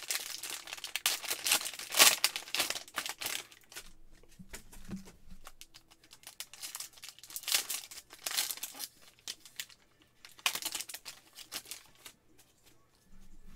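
Foil wrapper of a retail trading-card pack crinkling and tearing as it is pulled open by hand. The crackle comes in bursts: a long one at first, then shorter ones later.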